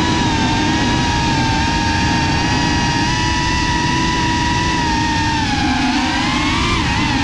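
GEPRC FPV quadcopter's brushless motors and propellers whining steadily, a high hum with overtones. The pitch sags about five and a half seconds in and climbs back near the end as the throttle eases off and picks up again, over a rough low rumble.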